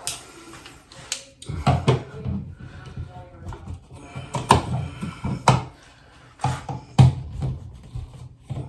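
Irregular clicks and knocks of tools and hands working at a wall light switch and its cover plate, which have been painted and mudded in.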